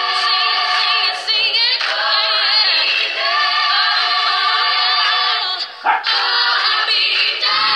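A woman singing loudly in an exaggerated, mock-operatic way, with a small dog barking once, about six seconds in.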